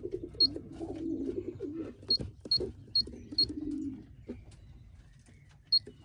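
Pigeons cooing in the loft for the first four seconds, while an electronic pigeon-racing clock gives six short, high beeps as it is cleared, the last of them near the end.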